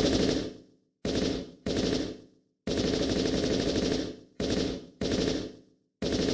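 Machine gun firing in short bursts of rapid automatic fire, about six of them, with dead silence between. One longer burst of about a second and a half comes in the middle.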